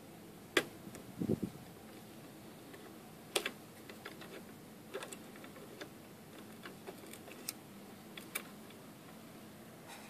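Scattered light metallic clicks and taps as lockpicking tools and a Lotus euro-profile lock cylinder clamped in a vise are handled, with a duller knock about a second in. The clicks thin out and stop in the last second or so.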